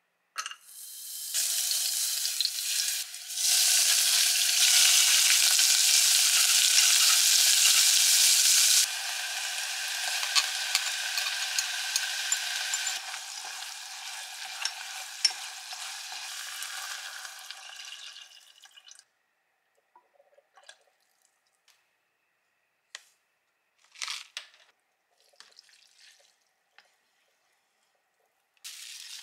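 Garlic and then ground meat frying in sesame oil in a nonstick pot: a loud, steady sizzle that drops in steps and dies out about 19 seconds in. After it, only a few faint clicks and a short scraping burst.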